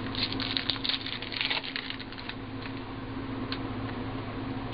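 Foil trading-card pack wrapper crinkling and cards being handled, a dense run of crackles for about two seconds, then quieter with a single click later on. A steady low hum runs underneath.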